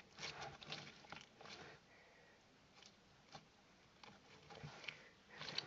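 Near silence with faint, scattered soft handling noises: brief rustles and ticks, mostly in the first second and a half and again near the end.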